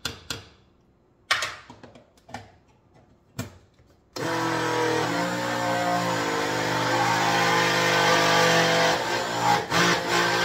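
A few separate knocks and clicks, then about four seconds in a small single-serve blender's motor starts and runs steadily, blending frozen fruit and collard greens into a smoothie.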